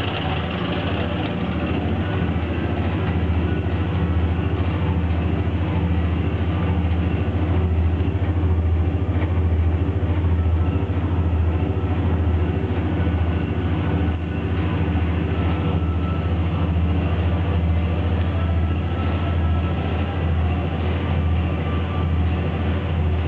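EWU Rotomat 125 rotary deburring machine running with grit, a steady low hum and dense rumble that holds level throughout.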